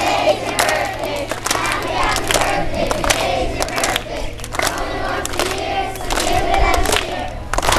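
A crowd of children cheering and shouting together, with scattered hand claps.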